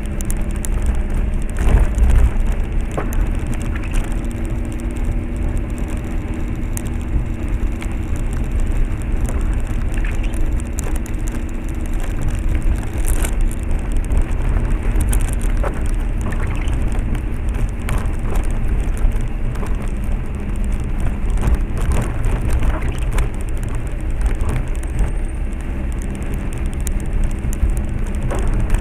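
Car running slowly along a wet, rough road, heard from inside the cabin: a steady low engine and road rumble with tyre noise on the wet surface, and scattered knocks and clicks over the bumps.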